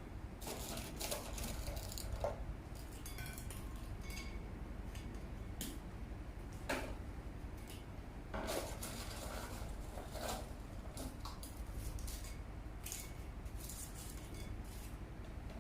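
Irregular light clinks and taps of plates and metal fittings being handled while a tiered cake plate stand is put together, over a faint low hum.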